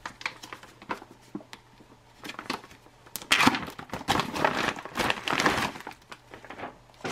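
Clear plastic outer bag of an MRE ration being torn open by hand: scattered sharp crackles of the plastic tearing, then about three seconds in a louder stretch of crinkling plastic and foil as the bag is pulled apart and the packets inside are drawn out.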